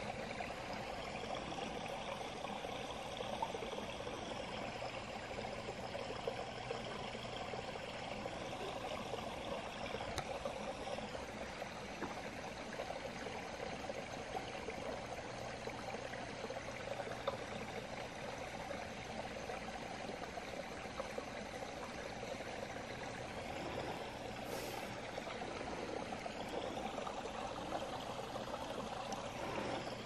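Small woodland stream running steadily over its bed, a continuous trickling water sound.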